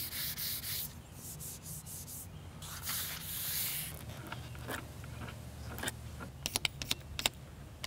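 Hand sanding of an old varnished wooden boat transom with folded 320-grit wet-and-dry paper held in the fingers: rasping strokes with gaps between them, then a quick run of sharp ticks near the end.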